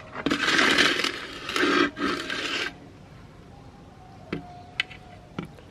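Harsh scraping or grinding in three bursts over about two and a half seconds, followed by three short clicks near the end.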